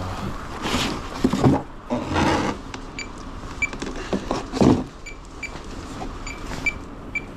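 Cardboard cases of food being set down and stacked: a few loud thuds and scrapes. From about three seconds in, a string of short high beeps at one pitch sounds at irregular intervals.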